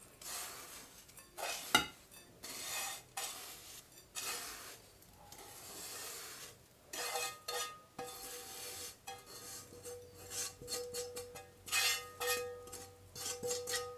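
A spatula scrapes and pushes toasted, buttered biscuit crumbs out of a non-stick frying pan onto a plate. The strokes are irregular and dry, with a few light knocks against the pan.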